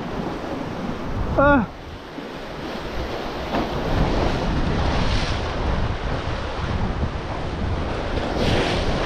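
Waves surging and washing against the concrete blocks of a rock wall, with wind buffeting the microphone. About one and a half seconds in, a brief loud sound falls steeply in pitch.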